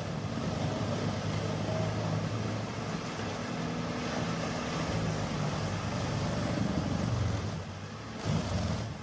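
Large engine of a heavy machine running steadily, its low hum shifting slightly in pitch as the load changes.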